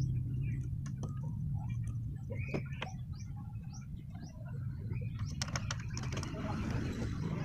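Birds chirping over a steady low hum, with a quick run of clicks and taps about five and a half seconds in as the folding table's steel frame is handled.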